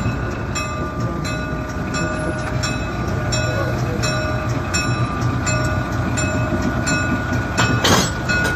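Diesel locomotive engine running as it creeps forward, with its bell ringing steadily about every two-thirds of a second. Near the end there is a loud clank as its coupler meets and ties onto the passenger car's coupler.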